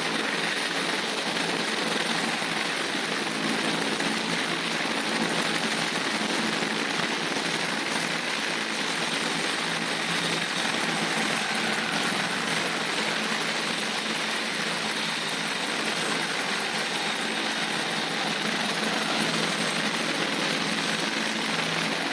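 RAF helicopter flying overhead, its rotor and turbine engines making a steady drone with no change in level.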